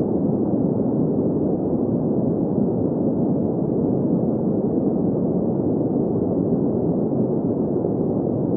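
Steady green noise for sleep: an even, unchanging rush centred in the low middle range, with no high hiss.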